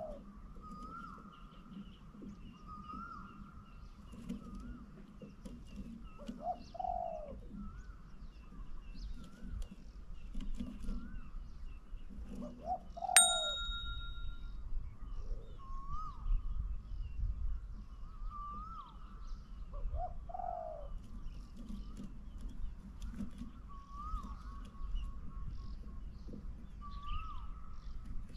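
Spotted dove cooing in short falling phrases, one every several seconds, over another bird's short, higher call repeated about every second and a half. A single bright chime rings out about halfway through.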